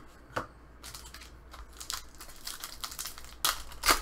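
Hockey trading cards and a foil card-pack wrapper being handled: papery crinkling and rustling with a click about half a second in, and two sharper, louder rustles near the end.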